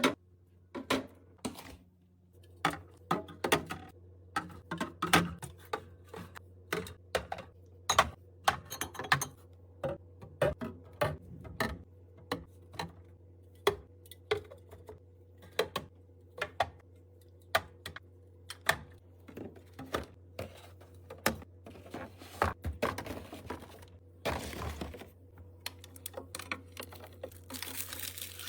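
Groceries and containers being handled and set down while restocking a refrigerator: a run of irregular light clicks and knocks, about one or two a second, over a steady low hum, with brief rustling near the end.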